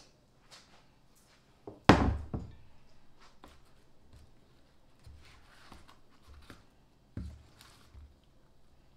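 A heavy glass mixing bowl set down on the countertop with one loud thunk about two seconds in, then quieter scrapes and soft knocks of a spatula stirring sauced meatballs in a foil pan.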